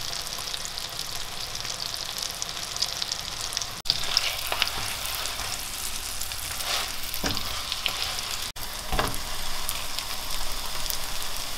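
Onion slices sizzling in melted butter in a frying pan, a steady hiss with scattered crackles and pops. The sound drops out briefly twice.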